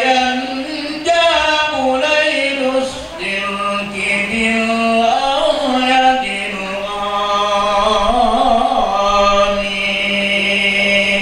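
Arabic devotional chanting of marhaban verses in praise of the Prophet, a male voice singing long held notes that bend and glide in ornamented phrases.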